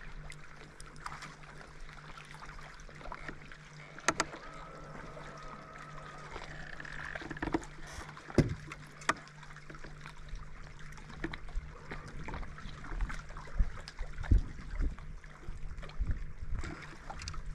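Small waves lapping against an aluminum jon boat's hull, under a faint steady hum. A few sharp knocks stand out, the loudest about four and eight seconds in, and low thumps come more often near the end.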